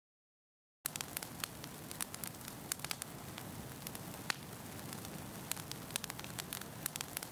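Digital silence for about the first second, then a steady crackling fire sound effect: a low hiss with frequent sharp, irregular pops.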